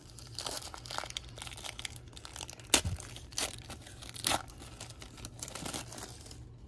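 A trading card pack being torn open and unwrapped by hand: irregular crinkling and tearing of the wrapper, with a few sharp cracks, the loudest about three seconds in.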